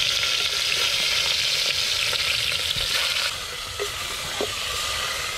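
Cajun-seasoned frog legs frying in a hot enamel pot, a steady loud sizzle, while a wooden spoon stirs them; the sizzle eases a little about three seconds in.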